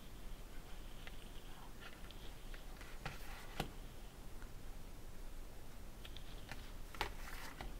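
Packaged stamp-and-die sets being handled: a few light clicks and rustles of card and plastic packaging as they are picked up and put down on a cutting mat.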